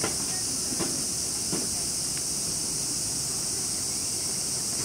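Steady, high-pitched chorus of cicadas buzzing without a break. A few faint ticks sound in the first two seconds.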